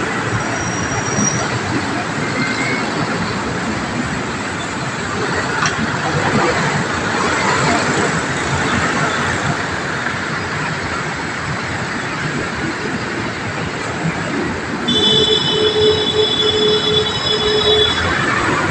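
Steady roar of road traffic passing beneath an elevated roadway. For about three seconds near the end a high squeal of several steady tones rises above it.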